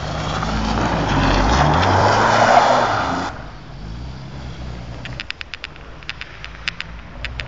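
Small car drifting on snow: the engine revs hard while the spinning, sliding tyres hiss on the snow. About three seconds in it drops off sharply, leaving the engine running more quietly farther away. A string of sharp clicks follows in the second half.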